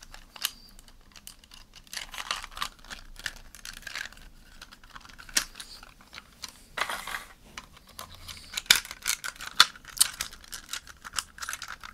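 Hard plastic parts of a toy cordless vacuum being worked apart by hand: scattered sharp clicks and short scraping, rustling bursts, the longest about seven seconds in.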